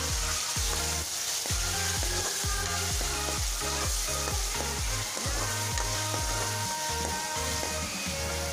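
Chopped onion, mustard seeds and green chilli sizzling steadily in hot oil in a metal kadhai, stirred around with a metal ladle.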